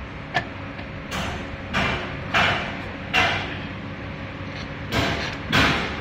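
Mobility scooter front wheel spun by hand several times, each spin a short swishing rustle that dies away; a sharp click about half a second in.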